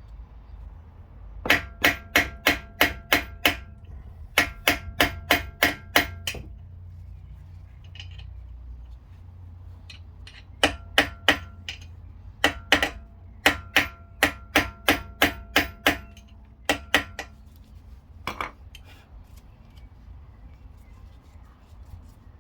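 Hammer tapping on a socket extension used as a drift, driving out the Audi Q7's front brake pad retaining pin, with sharp ringing metal-on-metal strikes. The strikes come in quick runs of about three a second, with pauses between them, and end in a lone blow near the end. The pin is seized with corrosion and hard to shift.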